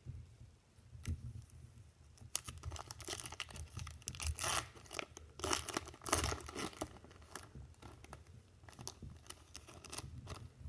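Foil wrapper of a Topps baseball card pack being torn open and crinkled by hand, a run of crackling starting about two seconds in.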